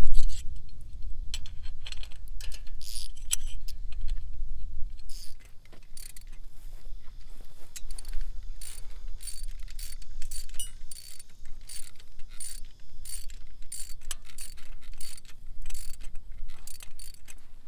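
Socket ratchet wrenches clicking in repeated short runs as the nuts on new sickle-bar knife sections are snugged down. A low rumble of wind on the microphone lies underneath.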